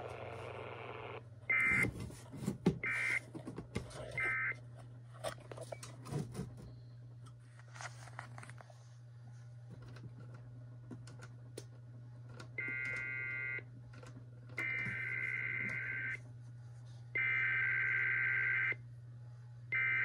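EAS SAME digital data bursts from the alert equipment, a warbling two-tone chirp near 2 kHz. First come three short bursts about a second apart, the end-of-message code. Then, after scattered clicks of front-panel buttons, come longer header bursts from about twelve seconds in, each a second or more and about a second apart, over a steady low hum.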